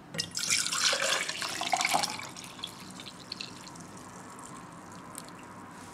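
Cocoa poured from a stainless steel saucepan into a stainless steel tumbler, the liquid splashing into the cup. It is louder for the first two seconds, then quieter as the pour goes on.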